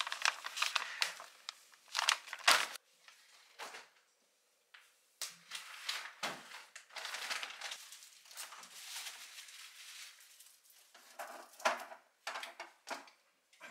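Packaging crinkling and rustling in irregular bursts as it is handled, with a brief break about four seconds in.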